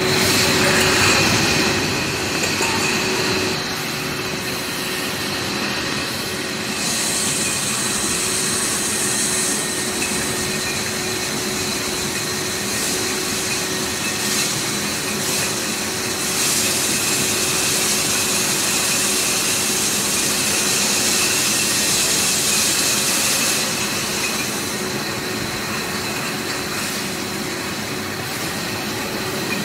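Glass beer bottles clinking and rattling against each other as they ride packed together on a stainless steel slat-chain conveyor, over the steady running hum and whine of the conveyor drives.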